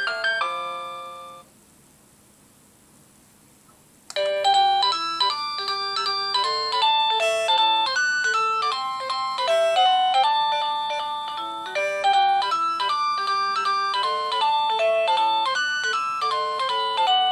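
Dick Smith Y8450 wireless door chime playing its electronic chime melodies: one tune dies away about a second in, and after a pause of a couple of seconds a longer tune of bright, stepped bell-like notes starts and plays on.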